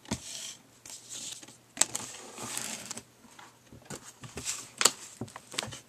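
Trading cards being handled on a desk: soft rustling and sliding of card stock, with a few sharp taps, the loudest near two seconds in and again near the end.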